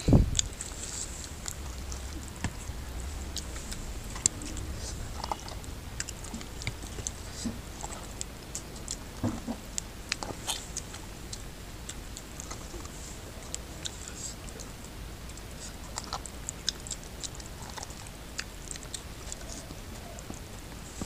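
Close-up eating sounds of a person eating oily curry rice and goat head meat by hand: wet chewing and smacking, with sticky squelches and many short crackly clicks as the fingers mix and grab the food. A single low thump right at the start.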